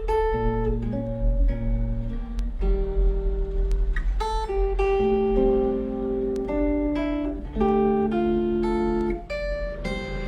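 Solo guitar playing a slow chord-melody line: a melody note over a bass note, with chord tones added between, each plucked and left to ring.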